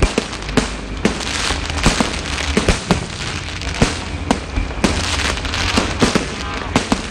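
Aerial fireworks bursting in a steady barrage: sharp bangs about once or twice a second over a dense, continuous crackle and rumble.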